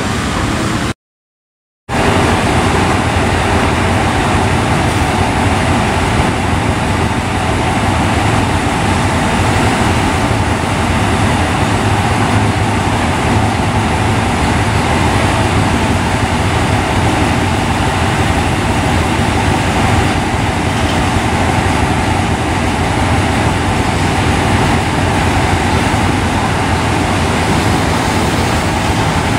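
Diesel-electric locomotive's engine running with a steady hum as it rolls slowly up to and past at close range, hauling passenger coaches. The sound cuts out completely for about a second near the start.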